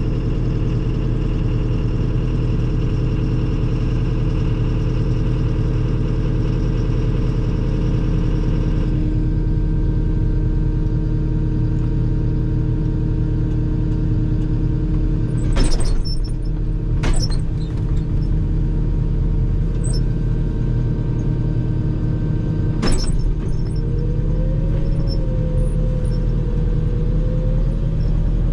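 A motor vehicle's engine running steadily with a low rumble. Three sharp knocks come about halfway through and again later, and a wavering whine rises over the engine near the end.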